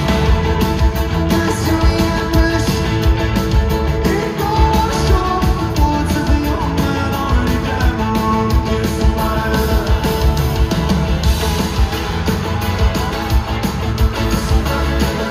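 Live rock band playing loudly through a concert PA: electric guitars, bass and drums, with a steady drum beat.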